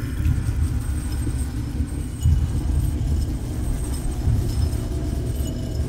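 Deep, steady low rumble of a dark-ambient horror drone, swelling a little now and then, with faint thin high tones above it.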